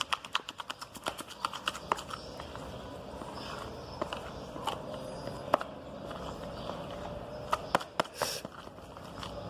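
Fluffy slime of glue, shampoo and shaving foam being stirred in a container as the activator is mixed in: quick regular wet taps and squelches for about the first two seconds, then slower, scattered clicks.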